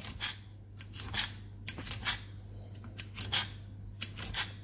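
Small kitchen knife slicing through crisp stringless beans on a granite worktop: a quick irregular run of short, sharp cuts, several a second at times.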